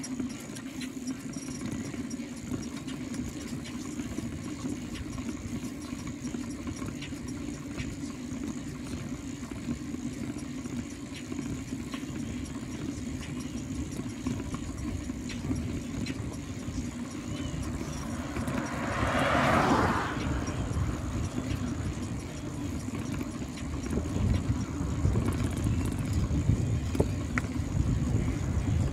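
Bicycle rolling along a paved highway shoulder: steady tyre hum on the road with wind rumble on the bike-mounted microphone, louder near the end. About two-thirds of the way through, a passing road vehicle swells and fades over about two seconds.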